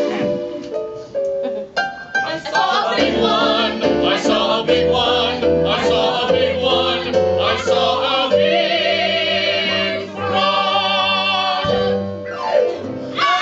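Several performers singing together over instrumental backing in a stage musical number, with a sliding vocal sweep near the end.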